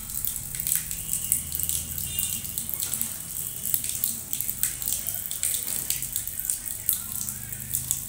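Rose-ringed parakeet bathing in a shallow puddle on concrete, flapping its wings and splashing water in quick, irregular flurries of patters and flicks.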